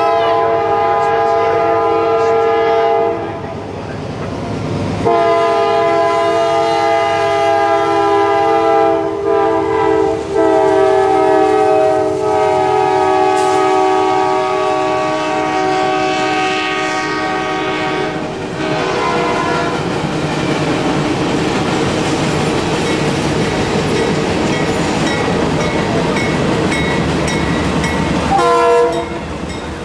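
CSX GE C40-8W freight locomotive horn blowing: a chord of about three seconds, a short break, then a long blast of about fourteen seconds. After it comes the rumble and wheel clatter of a long freight train passing close by, with a brief horn note near the end.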